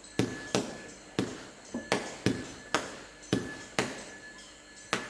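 Low-noise consumer fireworks cake (a 37-shot battery) firing in rapid succession: about ten sharp pops in five seconds, roughly two a second, each fading quickly.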